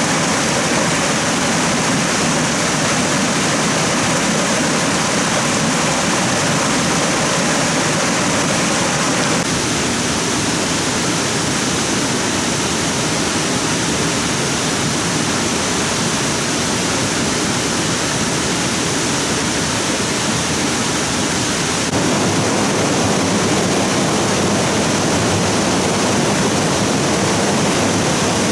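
Stream water rushing steadily. The sound shifts abruptly twice, about a third of the way in and again about three quarters of the way in.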